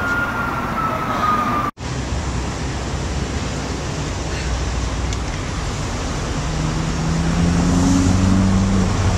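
A distant siren holding one high wailing tone that slides slightly lower, cut off abruptly about two seconds in. Steady roadway traffic noise follows, with a low engine hum coming in over the last few seconds.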